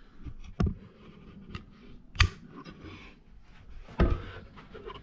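Knocks and clicks of a door being handled and pushed open, with three louder sharp knocks spaced about one and a half to two seconds apart and lighter clicks between them.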